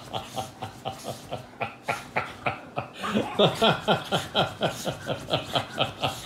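A man laughing under his breath in quick rhythmic chuckles, about five a second, swelling louder about halfway through.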